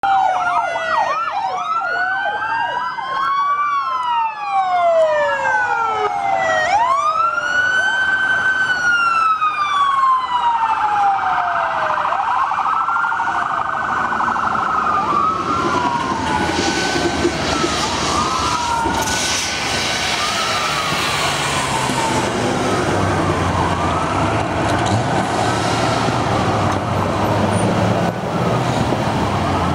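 Several police car sirens wailing at once, their pitches sweeping up and down and overlapping, with quick sweeps at first and longer, slower wails after. From about halfway, the low rumble of passing car engines rises beneath the sirens.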